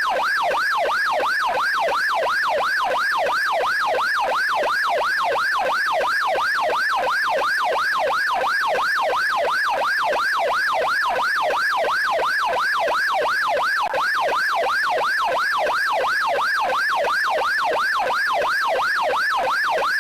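American police car siren on its yelp setting: a fast, steady wail that sweeps up and down about three times a second without a break.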